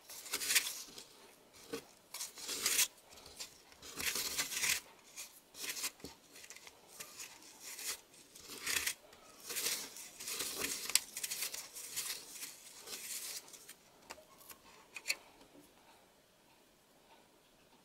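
Fingers and a wooden stick scraping and kneading gritty, powdery candy dough against a plastic tray: a run of short rasping strokes that dies away near the end.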